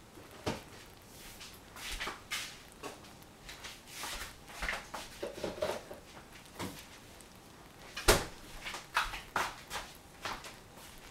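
Irregular sharp clicks, pops and knocks from cookware on a stovetop where strawberries simmer in syrup. The loudest knock comes about eight seconds in.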